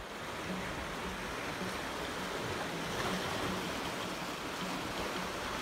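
Small sea waves washing over shoreline rocks: a steady, even wash of surf.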